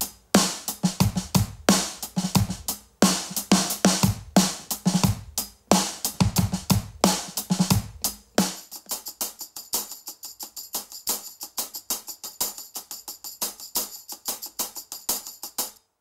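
Drum kit played in a steady groove, recorded through a single AKG 414 overhead microphone that is heavily compressed with an 1176, with kick, snare and cymbals all present. About eight and a half seconds in the low drums drop out, leaving only quick, even hi-hat and tambourine strokes, the overdubbed parts.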